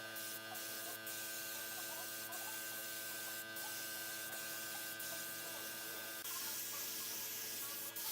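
Faint steady electrical hum with a high steady whine that stops about six seconds in, and a few soft clicks.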